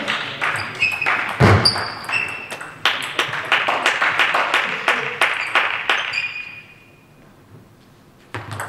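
Table tennis rally in a sports hall: the celluloid ball clicking on bats and table, shoes squeaking on the hall floor, and a single low thud about a second and a half in. After the point, spectators' noise with scattered clicks, a brief lull, then the ball clicking again near the end as play restarts.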